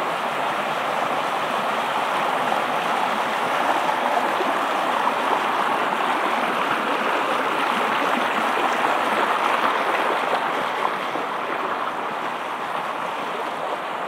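Shallow stream rippling and splashing over rocks and gravel, a steady rushing babble that eases slightly near the end.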